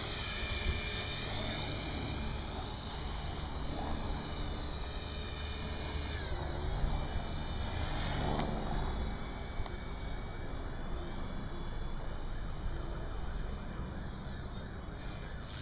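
Electric T-Rex 450 Pro RC helicopter flying overhead: a high-pitched whine from its motor and rotor head that rises and falls in pitch as it manoeuvres, dipping and climbing again about six seconds in, over a steady low rumble.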